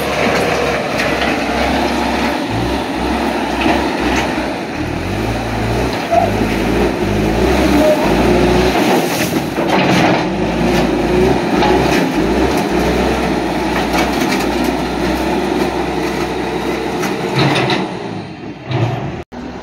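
Backhoe loader's diesel engine running under load as its front bucket pushes and spreads gravelly subbase material, the low engine note rising and falling with the load, with a few knocks of stone and steel.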